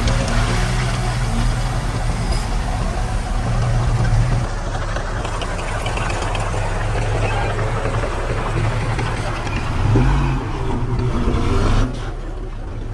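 Engine of heavy earthmoving machinery running steadily under load, with a brief rise in engine speed near the end, and a drop in loudness shortly after.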